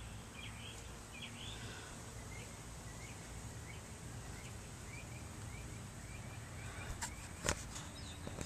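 A bird chirping over and over with short rising notes, over a low steady background rumble. Two sharp clicks come about seven seconds in.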